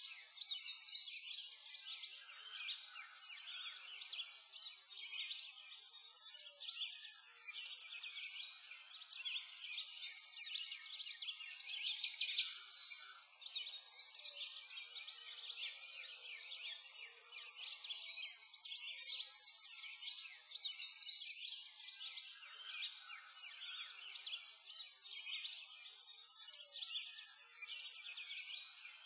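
A continuous chorus of many birds chirping and singing, high-pitched and dense, with no low sounds beneath it.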